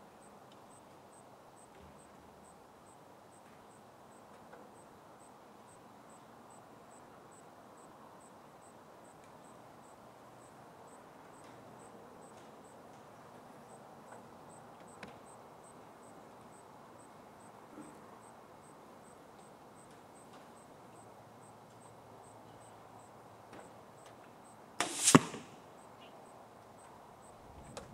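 A 100-pound bow shot from some distance away, followed about a third of a second later by the FOB-fletched arrow striking the target. This single sharp double event comes near the end, over faint, regular high ticking.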